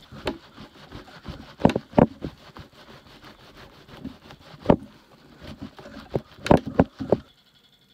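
A wax candle rubbed and scraped into a tin-cloth glove between the fingers, with irregular sharp knocks from handling; it stops abruptly about seven seconds in.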